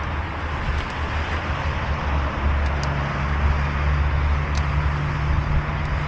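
Steady road traffic, with a vehicle's low engine hum swelling and fading in the middle as it passes. A few short, high calls from gulls flying overhead.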